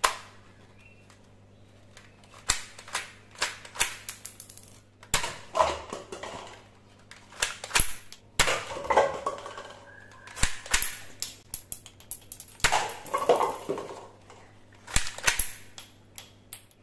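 Toy blaster firing single shots, about a dozen sharp pops spread irregularly with some in quick pairs, and paper cups rattling as they are hit and knocked down.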